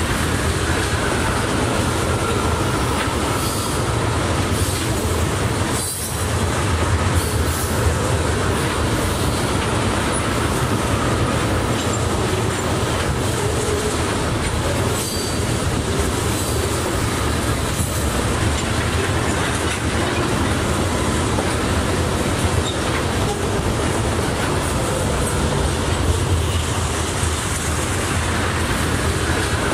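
Loaded oil tank cars of a freight train rolling past: a steady rumble of steel wheels on rail with clacking over the rail joints and a faint high wheel squeal.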